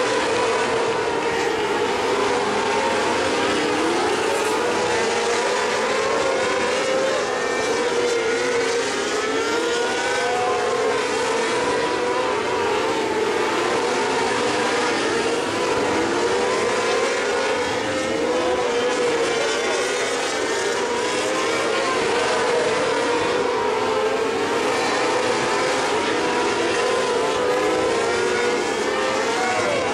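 A field of winged mini sprint cars racing on a dirt oval, their engines running together in a steady drone. Several overlapping engine pitches rise and fall as the cars lap the track.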